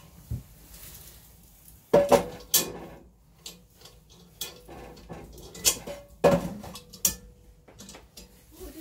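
Cast iron Dutch oven being set down and shifted on the steel top of a small wood-burning stove: a series of sharp metal clanks, some leaving a short ring, with the pot's wire bail handle clinking.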